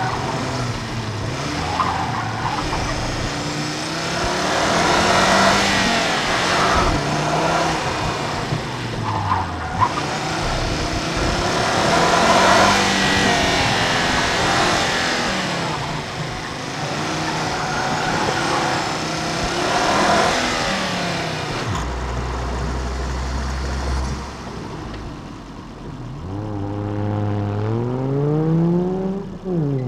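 2009 Volvo C30 T5's turbocharged inline five-cylinder engine, heard through engine and exhaust microphones, revving up and down again and again as the car is driven hard through an autocross course, with tire noise and squeal in the turns. About 22 seconds in it drops to a low idle, then revs up steeply again near the end.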